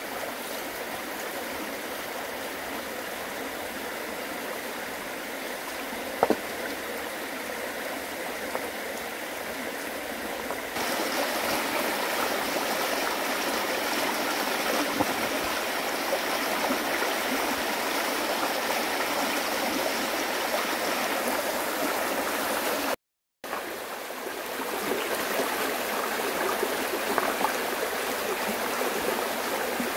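Running water flowing steadily with a rushing, gurgling sound and a single sharp click about six seconds in. It turns louder about ten seconds in and cuts out for a moment about three-quarters of the way through.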